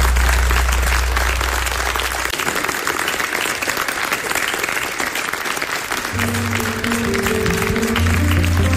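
Audience applauding, over a low held note from the end of a pop-rock song that cuts off about two seconds in. About six seconds in, the next song starts under the applause with low bass notes and held tones.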